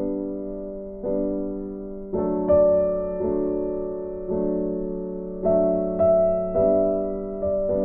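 Background piano music, notes and chords struck about once a second and left to fade.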